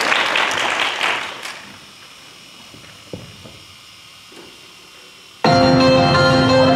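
Audience applause dying away over the first two seconds, then a quiet pause with a faint knock, before music with steady held notes starts suddenly about five and a half seconds in.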